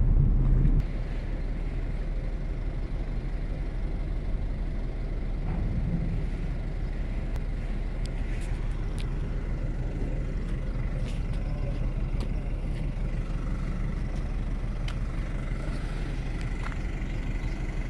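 Steady low rumble of idling engines, with a few faint ticks and a thin high tone over it. Wind buffets the microphone for the first second, then drops away.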